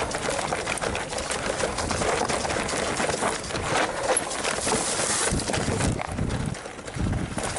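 Enduro mountain bike riding down a dirt trail: the tyres crunch over loose ground and the bike rattles with many small knocks. Wind buffets the microphone in heavy gusts in the second half.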